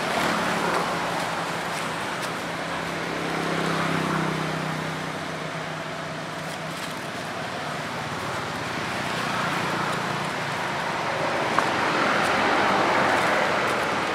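Steady noise of passing road traffic. A low engine hum is heard in the first half and fades about six seconds in, and the noise swells again near the end.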